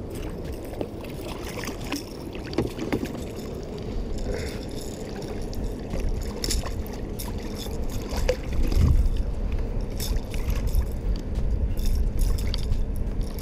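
Wind rumbling on the microphone and water lapping at a small boat's hull, with a louder gust of rumble about two-thirds of the way in. Scattered small knocks and splashes come as a hooked bass is brought alongside the boat.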